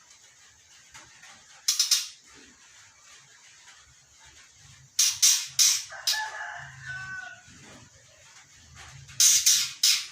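Young white-rumped shama, about three months old, giving three short bursts of harsh, rasping calls, with a run of lower whistled notes after the second burst.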